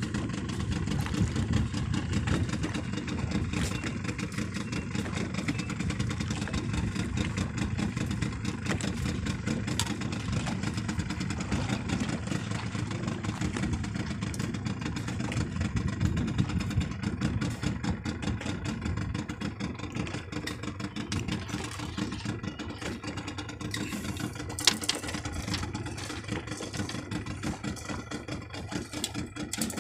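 Small outboard motor running steadily at low speed, pushing a small boat along while trolling. A single sharp click sounds near the end.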